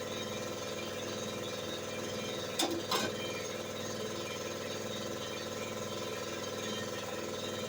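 An engine running steadily at an even idle, with two sharp knocks or clicks close together about two and a half to three seconds in.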